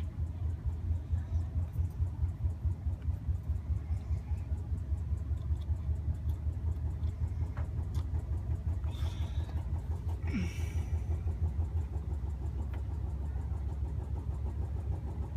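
A low, steady machine-like hum with a fast, even pulse, from an unseen source. A few faint light clicks from small metal weight cubes being set in place with tweezers.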